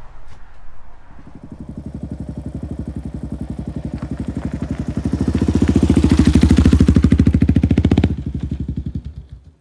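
Motorcycle engine running with a rapid, even pulse, growing louder about five seconds in, dropping back about three seconds later, then fading out.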